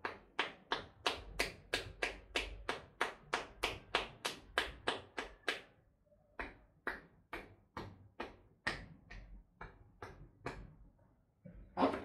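Percussive head massage: hands tapping rhythmically on a person's head, sharp hollow taps about three a second, slowing to about two a second after about six seconds. A single louder knock near the end.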